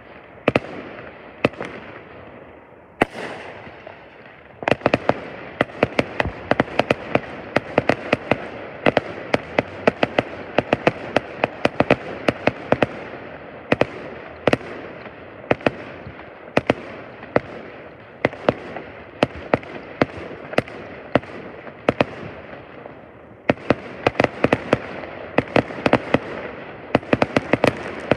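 Fireworks finale: aerial shells bursting in a rapid barrage, many sharp bangs and cracks over a continuous rumble. The bangs come only every second or two at first, then pile up densely from about five seconds in.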